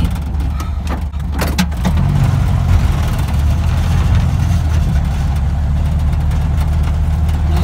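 1965 Volkswagen Beetle's air-cooled flat-four engine running under load on a rough dirt trail, heard from inside the car. There are two sharp knocks about a second and a half in, and the engine grows louder about two seconds in.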